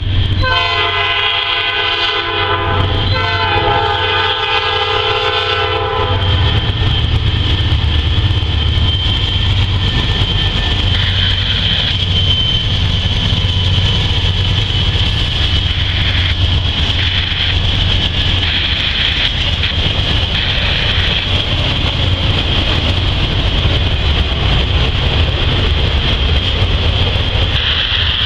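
Freight train's diesel locomotive air horn sounding two blasts, a shorter one then a longer one, over the first few seconds. After that comes the steady low rumble of the locomotives and the rolling freight cars, with some clickety-clack of wheels on rail joints.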